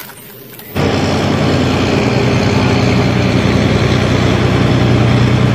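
Heavy engine of a multi-axle missile-launcher truck running steadily. It starts abruptly under a second in.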